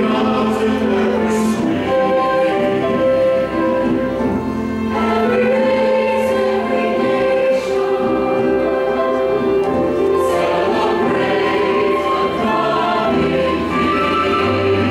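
Mixed church choir singing a sustained anthem, accompanied by piano and strings.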